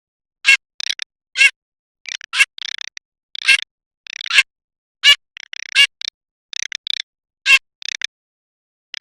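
Garganey calling: a run of short, dry rattling calls, about one or two a second with brief silent gaps between them.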